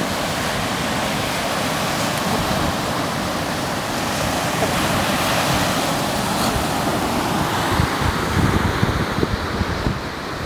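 Baltic Sea surf breaking and washing on a sandy beach as a steady rushing noise, with wind buffeting the microphone in low, uneven rumbles that grow stronger near the end.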